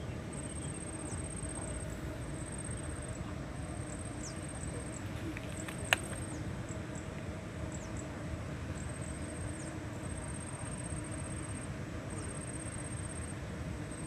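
An insect trilling high in repeated bursts of about a second or so, with short gaps between, over a low steady rumble. A single sharp click about six seconds in.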